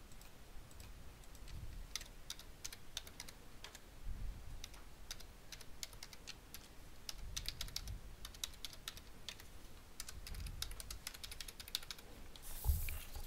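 Typing on a computer keyboard: quick runs of faint keystrokes with short pauses between them, as text is entered into form fields. A brief louder rustle comes near the end.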